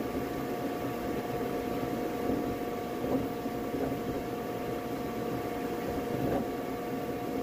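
Flashforge Adventurer 5M Pro 3D printer running mid-print: a steady whir with a few steady whining tones and a few faint ticks as the print head moves.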